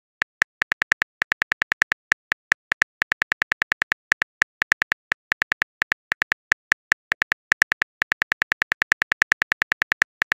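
Simulated smartphone keyboard clicks: a rapid, slightly uneven string of short taps, about five or six a second, with brief pauses between bursts, as a text message is typed out.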